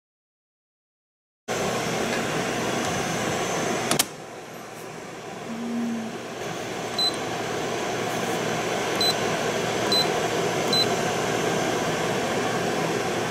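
Tiger JAY-A rice cooker's control panel giving four short, high beeps as its Hour/Min button is pressed to set the cooking timer, over a steady hiss. A single click about four seconds in.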